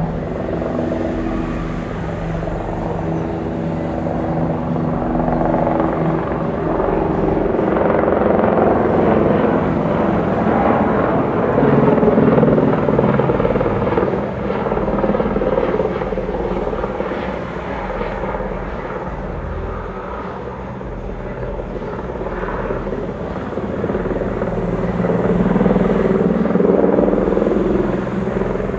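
Lockheed Super Constellation's four Wright R-3350 radial piston engines droning at climb power just after takeoff. A helicopter's rotor and engine join in near the end.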